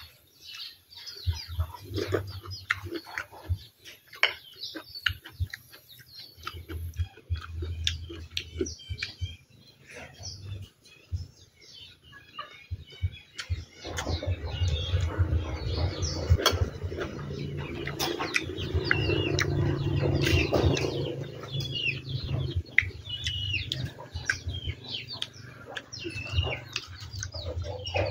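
Small birds chirping over the scene, with short clicks and eating sounds from a spoon and plate. A low rumble swells about halfway through and eases off over the last few seconds.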